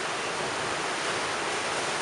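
Storm-surge sea washing and breaking against a stepped stone seawall: a steady rush of churning surf.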